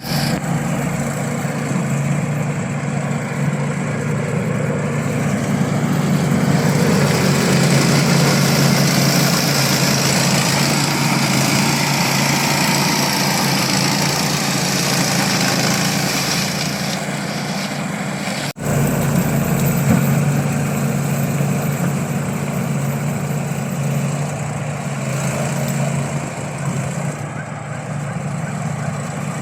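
Remote-control lawn mower's small engine running steadily, broken once by a brief, sudden dropout about two-thirds of the way through.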